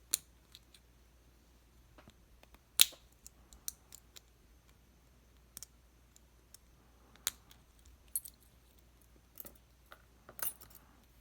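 Scattered small metallic clicks and taps as stuck driver pins and springs are worked out of a Lockwood MT5+ lock's pin chambers. One louder clack comes about three seconds in.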